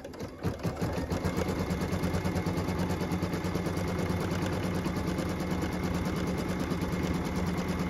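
Computerized embroidery machine stitching a tack-down line that fastens a fabric piece to the quilt block: a steady, rapid, even run of needle strokes over a low hum, starting just after the beginning.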